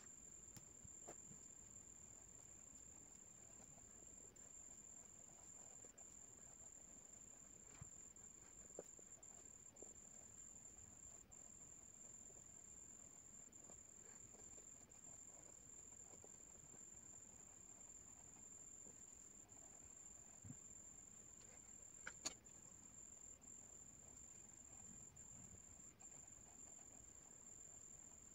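Near silence, with a faint, steady, high-pitched whine throughout and a few faint clicks.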